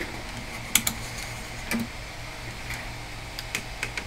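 Scattered light clicks and taps of a multimeter and small items being handled on a workbench, the sharpest a little under a second in, over a steady low hum.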